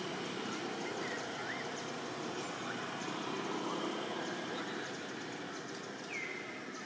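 Steady outdoor background noise with a faint constant hum, over which faint short whistled chirps come and go; one clearer chirp falls and then holds its pitch about six seconds in.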